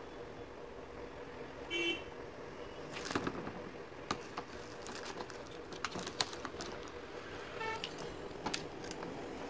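Cylindrical lithium cell being fitted into a plastic battery holder: a scatter of sharp clicks and plastic taps. A short horn toot sounds about two seconds in, and a fainter one near the end.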